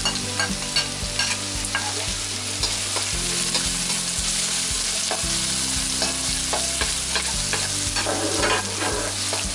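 Minced garlic sizzling steadily in hot vegetable oil in a wok, with a spatula scraping and clicking against the metal as it is stirred. It is the first stage of frying the garlic until light brown.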